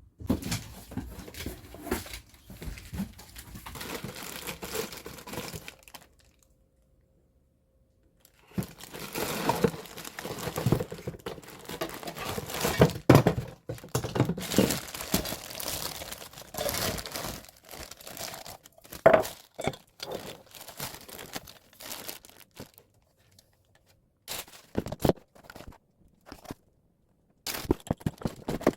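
Plastic or paper packaging crinkling and tearing as it is handled, in irregular bursts with sharp little knocks, broken by a few short silences.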